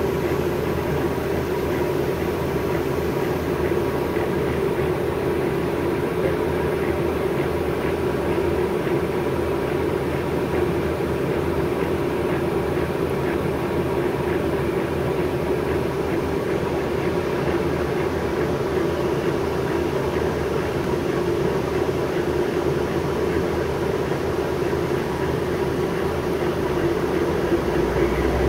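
New Flyer C40LF transit bus's John Deere natural gas engine idling steadily while the bus stands still, heard from inside the passenger cabin.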